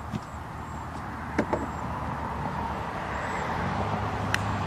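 Golf club striking a ball off the tee: a single sharp click near the end, over a steady low rumble. Two short clicks come about a second and a half in.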